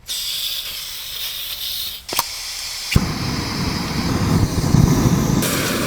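Camping gas stove being lit: gas hissing from the opened valve, a click about two seconds in, then a pop about three seconds in as the burner catches and runs steadily.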